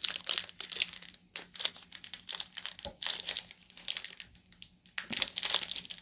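Plastic protein-bar wrapper crinkling and rustling in the hands as someone tries to tear it open: a run of irregular crackles, with the wrapper resisting.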